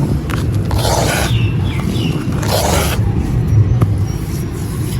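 Wet, gritty stone clumps crumbling and crunching twice, about a second in and again about two and a half seconds in, over a steady low rumble.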